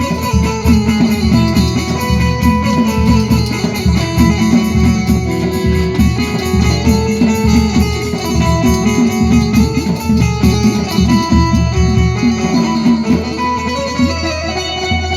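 Loud music with a plucked-string melody over a heavy, steady bass beat, played through a DJ sound system.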